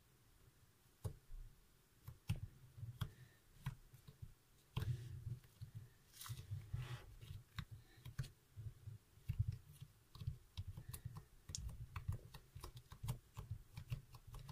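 Blue glitter slime being gently pressed and squished with the fingertips, giving faint, irregular soft clicks and little squelching pops.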